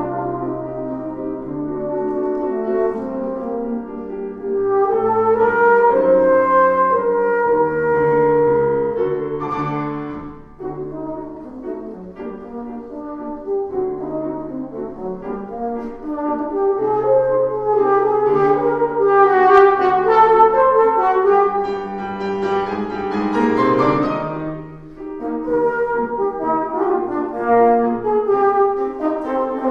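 Tenor horn playing a slow, lyrical concerto melody of long held notes over brass band accompaniment. Phrases break briefly twice, and a fast rising run comes about three quarters of the way through.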